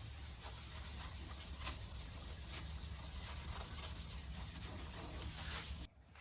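Steady hand rubbing on the metal and wood of an old Disston hand saw during its restoration, over a low hum. It cuts off abruptly just before the end.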